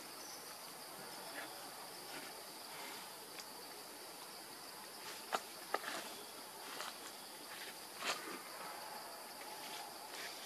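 Steady high-pitched chorus of insects buzzing in the surrounding vegetation, with a few sharp clicks about halfway through and again a little later.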